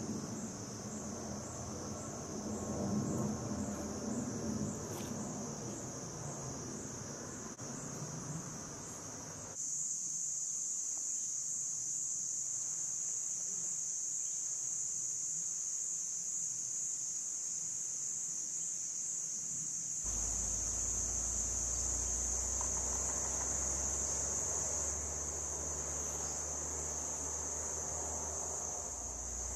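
Forest insects shrilling in a high-pitched chorus: pulsing rapidly in the first third, then an unbroken steady drone. A low rumble joins about two-thirds of the way in.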